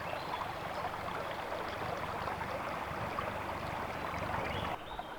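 Steady rushing of water, an even noise without tone, that drops off and changes about five seconds in.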